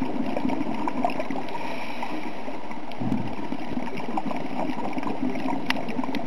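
Underwater reef ambience heard through a camera's waterproof housing: a steady muffled rush with scattered faint crackles. A brief low gurgle comes about three seconds in, and a sharp tick near the end.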